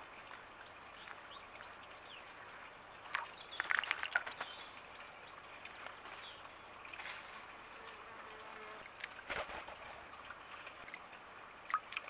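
A blackbird bathing in a garden bird bath: a quick burst of splashing about three to four seconds in, and a single thump later. Faint distant bird chirps sound in the background.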